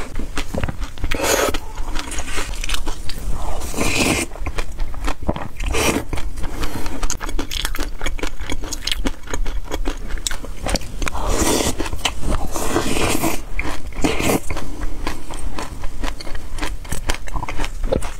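Close-up eating sounds: sesame-topped yogurt being chewed with many small crunches and mouth clicks, and a plastic spoon scraping and scooping in a glass bowl.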